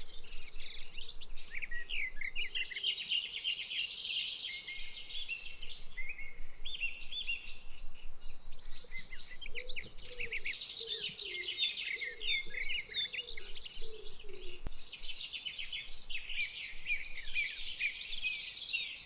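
A dense chorus of many small birds chirping and trilling together, with quick overlapping high calls throughout. A fainter, lower wavering call joins about halfway through.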